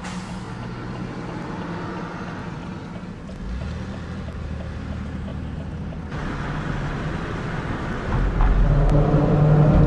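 Road and engine noise heard inside a moving car. About eight seconds in it turns into a louder droning hum with several steady tones as the tyres run onto a steel grid bridge deck.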